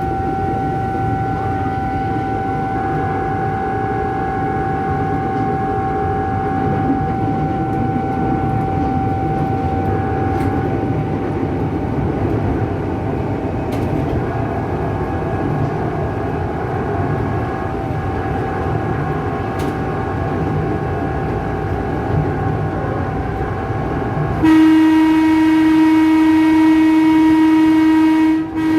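Tokyu 8500-series electric commuter train running, heard from the cab: a steady rumble with a faint steady whine. About 24 seconds in, its electric horn sounds loud and sustained, with a brief break just before the end.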